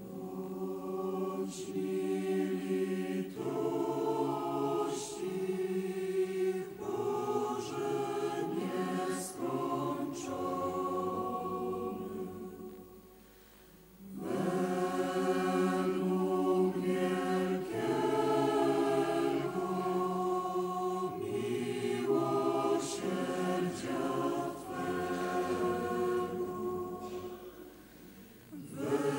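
Choir singing a slow hymn, the entrance hymn at the start of a Catholic Mass. It comes in two long phrases, with a short break about thirteen seconds in and a fade near the end.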